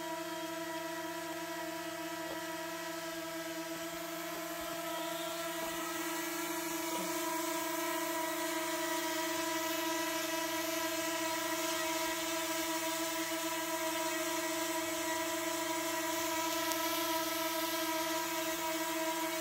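Small quadcopter drone (DJI Mini 2) propellers buzzing at a steady pitch, a hovering whine that grows a little louder about five seconds in.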